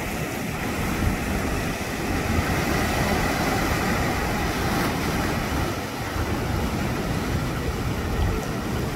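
Sea surf breaking and washing in foam over rocks: a steady rushing wash, with wind buffeting the microphone as a gusty low rumble.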